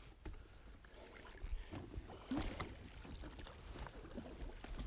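An oar paddling in shallow water beside an inflatable boat: soft splashes and drips, with a few light knocks. A low rumble runs underneath.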